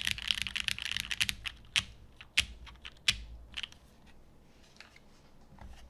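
Custom mechanical keyboard being typed on: a GS case with a UHMWPE plate, lubed Gateron Ink linear switches and GMK keycaps. Fast, dense typing for about a second and a half slows to a few separate keystrokes, one with a deeper thud about three seconds in. The typing then dies away to faint ticks.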